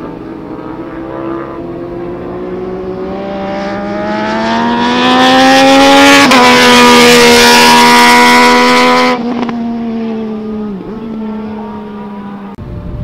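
MV Agusta F3 800's three-cylinder engine through a Tre Forza slip-on exhaust, accelerating hard down the straight as the sportbike comes past. The engine note climbs steadily and grows loud, drops sharply in pitch about six seconds in as the bike goes by, and the loud part cuts off suddenly about nine seconds in.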